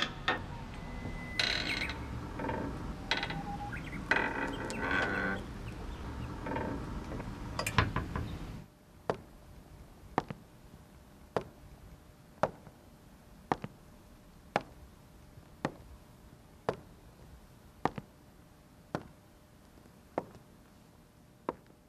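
Outdoor background with birds chirping for about the first eight seconds. It then cuts to a quiet hall, where single heel steps on a wooden stage ring out sharply and evenly, about one a second.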